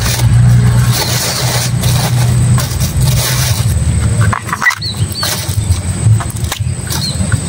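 A motor engine runs steadily close by, its low hum dropping away about four seconds in, with crackling as the purple bracts of a raw banana heart are torn off by hand.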